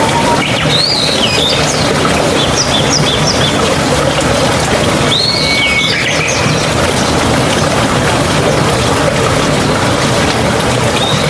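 Steady rush of flowing stream water, with a songbird calling over it in short chirping phrases about a second in, a few times soon after, again around the middle, and near the end.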